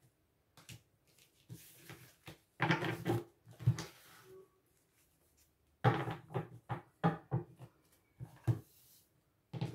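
Oracle cards being shuffled and laid out on a table: two bursts of quick clicks, slaps and taps, the first about two and a half seconds in and a longer one from about six seconds in.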